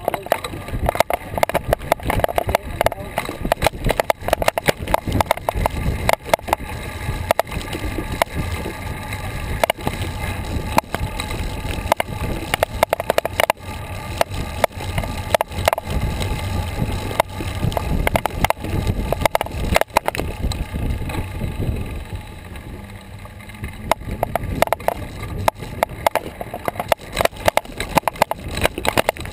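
Riding noise picked up by a bicycle-mounted action camera: wind rumbling on the microphone and a constant rattle of the bike and camera mount over the pavement, easing briefly about two-thirds of the way through.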